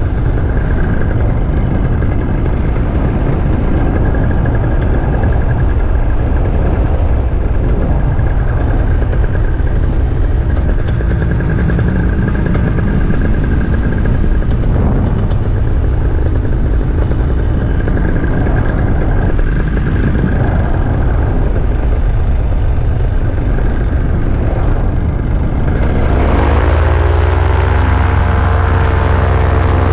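Paramotor engine and propeller running steadily under loud wind rush on the microphone. Near the end the engine is throttled up, its pitch rising into a strong, even drone.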